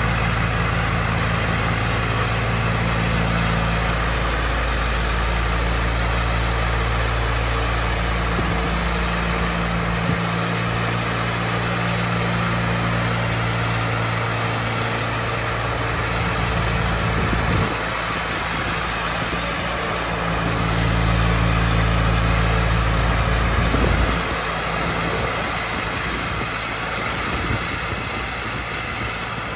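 Wheel Horse 418-A garden tractor's engine running steadily under load while driving its 42-inch single-stage snowblower, over the even hiss of snow being thrown. The low engine drone swells and fades a couple of times.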